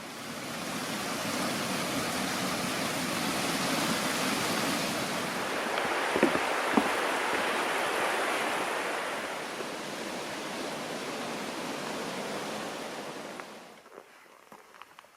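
Steady rush of flowing water, swelling in over the first second and fading away near the end.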